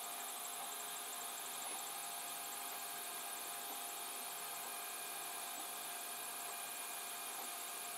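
A 3D printer running mid-print: a steady whir and hum from its cooling fans and stepper motors, with a high hiss and a few steady tones.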